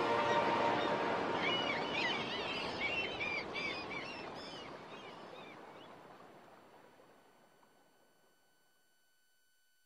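Nature ambience at the close of a Celtic background music track: a steady rushing noise with birds chirping briefly a few seconds in, the whole fading out to silence.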